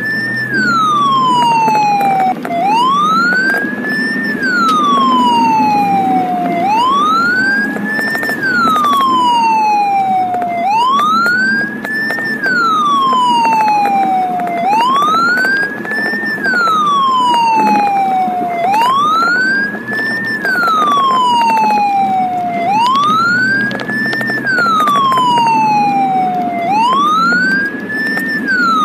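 Ambulance siren in its wail mode, heard from inside the ambulance's cab. It glides slowly up in pitch and back down, one cycle about every four seconds, over steady engine and road noise.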